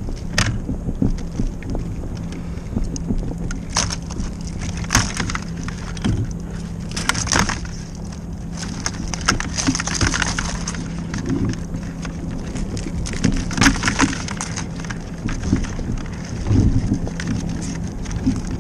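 Live blue crabs being dumped out, their shells and claws clattering and scraping irregularly against the container and each other, with several louder rattling bursts.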